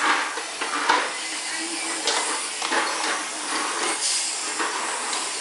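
Vacuum cleaner running steadily, with a few brief knocks.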